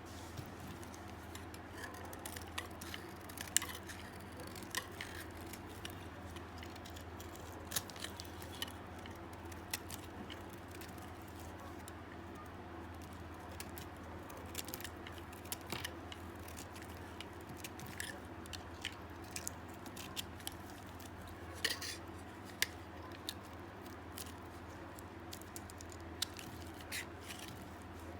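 Dry soap being cut into small pieces, giving irregular crunchy cracks and snaps, some louder than others, over a faint low hum.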